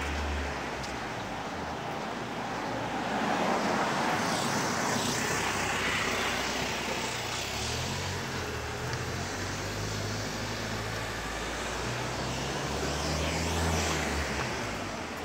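Street traffic: cars driving past on a town road, the noise swelling louder twice as vehicles go by, over a steady low rumble.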